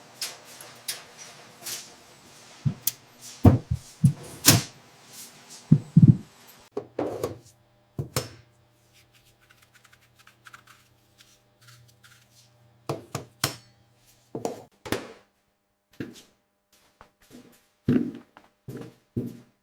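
Irregular thuds and knocks, loudest in the first few seconds, over a low steady machine hum that stops about three quarters of the way through.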